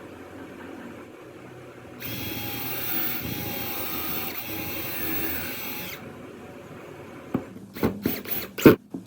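Electric hand drill running steadily for about four seconds, starting and stopping abruptly. Near the end, a series of sharp, irregular knocks.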